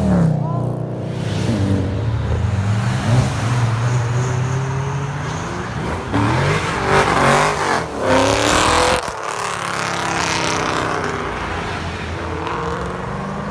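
Cars pulling away and passing close by, their engines revving up and easing off several times, with one louder, hard-accelerating pass about seven to nine seconds in.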